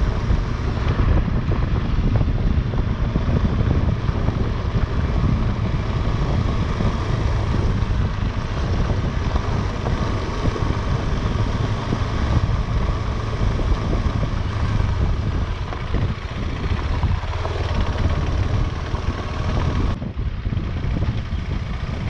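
KTM 250 Adventure's single-cylinder engine running steadily at riding speed, mixed with wind noise on the microphone. The sound breaks briefly near the end.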